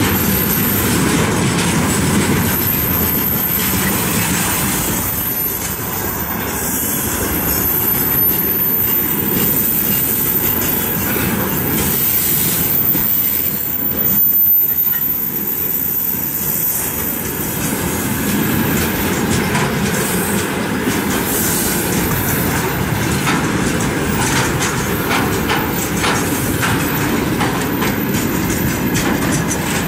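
Freight train of railway tank cars rolling past close by, the wheelsets clattering steadily over the rail joints with a heavy rumble.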